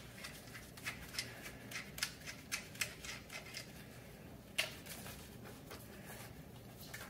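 Faint, light metallic clicking about three times a second, with one sharper click a little past halfway, from hand tools and fittings being worked on the electric scooter's rear suspension arm as its fastener is taken off.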